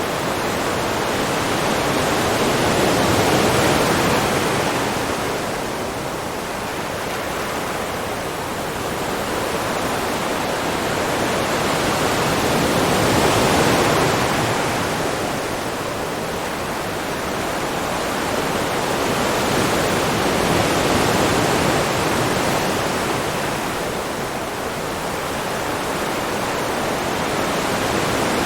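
Ocean waves breaking and washing onto shore: a steady rush of surf that swells and eases, cresting about every eight to ten seconds.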